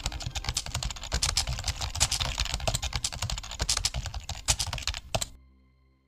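Fast typing on a computer keyboard, a dense run of key clicks that stops a little over five seconds in.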